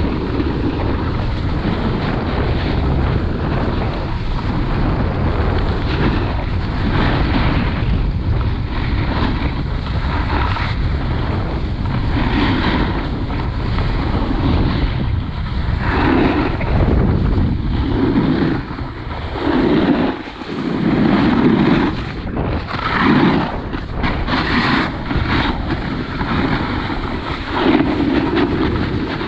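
Snowboard sliding and carving over hard, choppy snow at speed, a continuous rushing scrape with wind buffeting the microphone. Louder surges of edge scrape come every second or two in the second half as the board turns.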